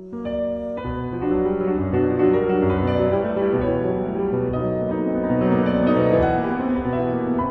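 Slow piano music with sustained chords over low bass notes, in the manner of a nocturne.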